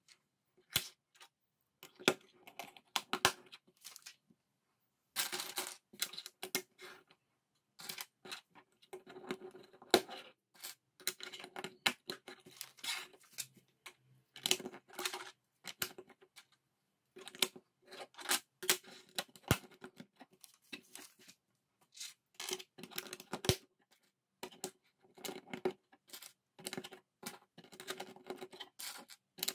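Plastic LEGO bricks clattering and clicking as pieces are picked out of a loose pile on a hard tabletop and pressed together, in irregular bursts of sharp clicks with short pauses between.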